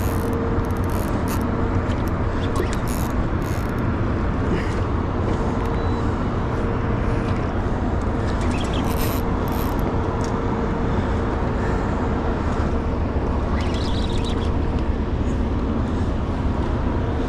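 Boat's outboard motor running steadily with wind and water noise, a faint hum coming and going over a low rumble.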